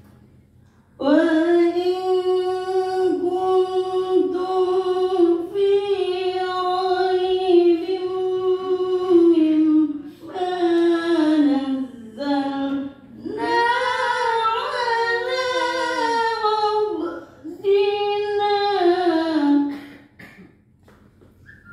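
A female voice reciting the Qur'an in Arabic as melodic chanting (tilawah), holding long drawn-out notes in several phrases with brief pauses for breath. The voice is hoarse from a cough.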